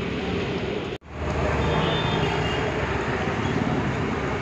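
Steady street traffic noise, the hum of passing vehicles, cut off by a brief drop-out about a second in and then running on.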